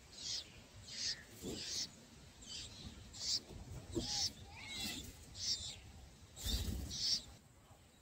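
Bulbul nestlings begging in the nest: a string of short, high cheeps, roughly one or two a second. A brief rustling burst about six and a half seconds in.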